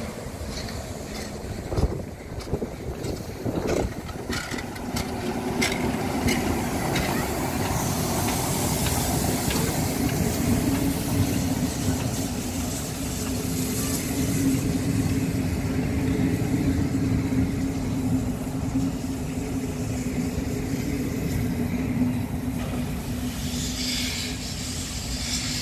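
Ol49 class steam locomotive pulling a passenger train slowly past, with regular exhaust beats and then hissing steam as it goes by. After that comes the steady rumble of the coaches rolling along the track.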